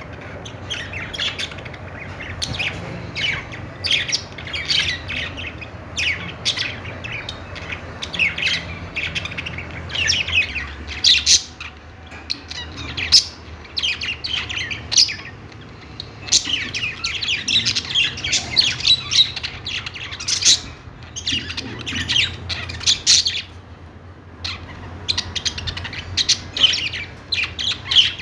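Many budgerigars chirping and squawking together, short high calls overlapping in constant chatter that eases briefly near the end. A steady low hum runs underneath.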